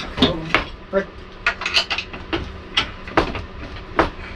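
Irregular metallic clanks and knocks, about ten of them, as a Suzuki SV650 engine is lifted and shifted into its motorcycle frame by hand.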